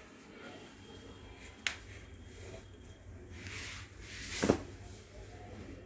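Faint hand-handling sounds while threading a chain-stitch embroidery machine: a light click about a second and a half in, then a soft rubbing that swells into a short knock a little past the middle.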